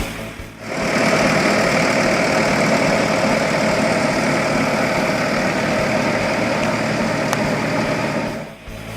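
1999 Bobcat 873 skid steer's diesel engine running steadily, coming in about a second in and dropping away near the end.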